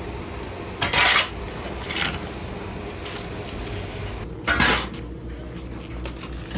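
A metal utensil scraping against a metal pan in a few separate strokes, the loudest about a second in and again a little past the middle, with a fainter one in between.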